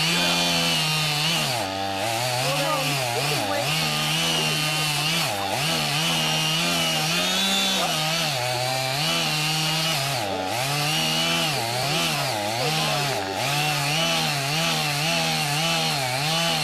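Chainsaw running loudly, its engine pitch dipping and climbing back over and over as the throttle is worked.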